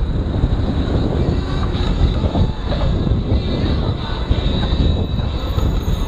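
Steady low noise of wind on a bike-mounted action camera's microphone while riding in city traffic. Faint high squealing tones come in near the end.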